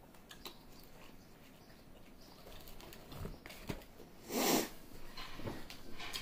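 Close-up chewing and mouth sounds of someone eating a slice of pizza, with small wet clicks and one louder breathy burst about four and a half seconds in.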